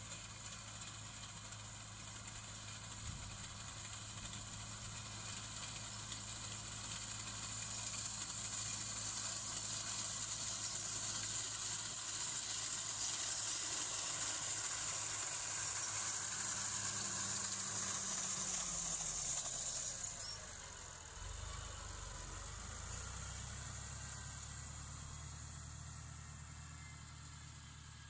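Tractor diesel engine running under load with a front-mounted reaper cutting standing wheat, growing louder as it comes close. About two-thirds of the way through the engine note drops in pitch, the high hiss stops, and the sound fades as the tractor moves away.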